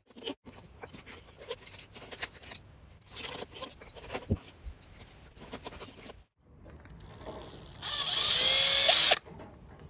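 Potato peeler scraping and shaving a piece of wood in quick, irregular strokes. Near the end a small power tool runs loudly for about a second, its whine rising.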